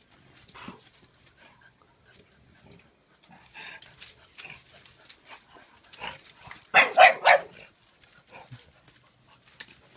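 Bullmastiff puppy and French Bulldog at play: scattered quiet dog noises, then a quick run of three barks about seven seconds in.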